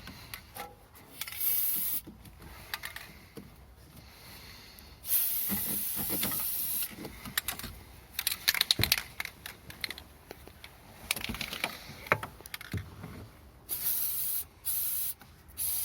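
Aerosol can of white lithium grease spraying in hissing bursts onto the gear-shift linkage joints. There is a short burst about a second in, a longer one of about two seconds around five seconds in, and several short bursts near the end, with small clicks and knocks between them.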